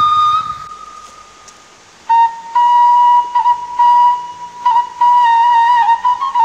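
Background music: a flute playing a slow melody of long held notes with a slight waver, fading away about half a second in and coming back about two seconds in.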